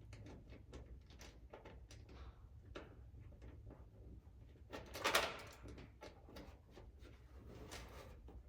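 Light scattered clicks and taps of nuts and washers being fitted by hand onto studs behind a car's fender rock guard, with one louder handling noise about five seconds in.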